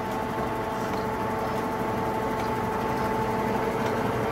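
Blanchard No. 18-36 vertical-spindle rotary surface grinder running with its grinding wheel spinning under power: a steady machine hum with two steady whine tones over it.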